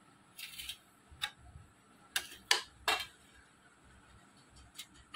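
Spatula scraping and tapping against a kadai and a steel plate while cooked vegetables are served out: scattered light clicks and scrapes, with three louder taps in the middle.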